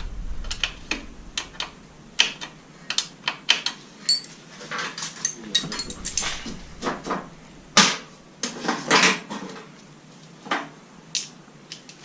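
Metal hand tools and motorcycle parts clinking and knocking in irregular, sharp strikes, with a few louder clanks about eight and nine seconds in.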